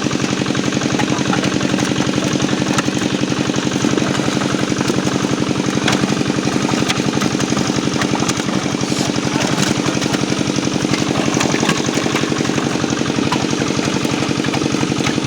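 An engine running steadily at an even speed, a fast, regular pulsing that holds the same pace throughout.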